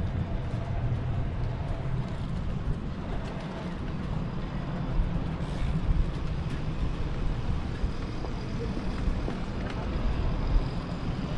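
Steady street noise heard while riding a bicycle: a low rumble of wind and road noise, with passing traffic.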